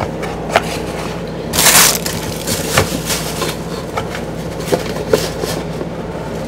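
Cardboard lens box and its packing being handled: a crinkling rustle of packing about one and a half seconds in, with scattered light knocks and clicks.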